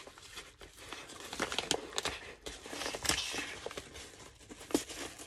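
Yellow plastic mailing bag crinkling and tearing as it is pulled open by hand, in irregular crackles and short rips, the longest rip about three seconds in.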